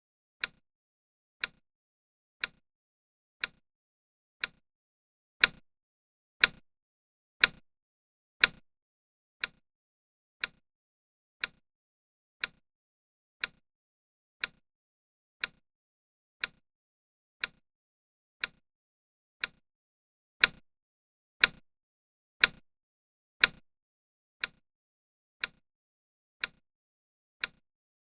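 Clock-style tick sound from a countdown timer, one sharp tick every second. About five seconds in, and again about twenty seconds in, four ticks in a row are louder.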